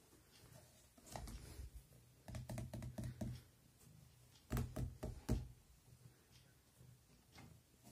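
A cat shifting inside a cardboard box, bumping and scraping the cardboard: three bursts of soft knocks and taps, the loudest a little past halfway.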